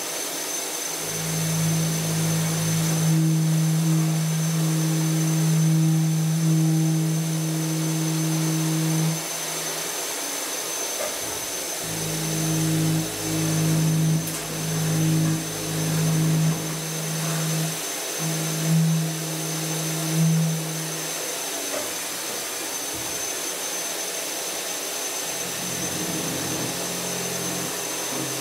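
CNC milling of 42CrMo4 alloy steel with a 12 mm three-flute carbide end mill: a steady humming cut for the first nine seconds or so. Later the hum breaks into short spurts as the cutter moves in and out of the material, and then settles to a quieter steady machine sound near the end.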